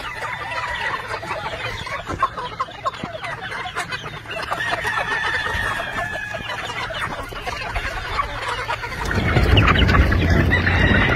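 A flock of young gamefowl chickens clucking and peeping, with a longer held call partway through that sounds like a young rooster crowing. About nine seconds in, a louder low rustling noise comes in under the calls.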